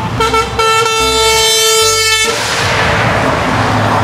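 Truck air horn with several tones at once: a couple of short toots, then a steady blast that cuts off about two seconds in. After it comes the rush of a heavy truck's engine and tyres going past.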